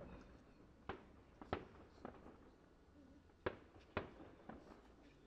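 Distant fireworks display: aerial shells bursting as a string of sharp bangs, each with a short echoing tail. The loudest comes about three and a half seconds in.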